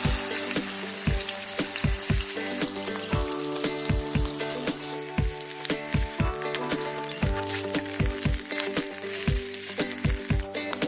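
Minced-meat roll sizzling as it fries in hot oil in a frying pan, with background music and a steady beat underneath; the sizzle cuts off near the end.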